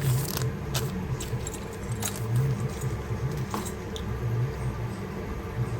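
Small gold jewellery pieces being handled, giving a scatter of light metallic clicks and clinks over a steady low hum.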